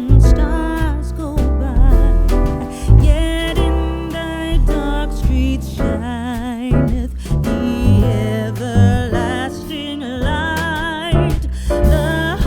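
Background song: a sung melody with vibrato over bass and guitar accompaniment.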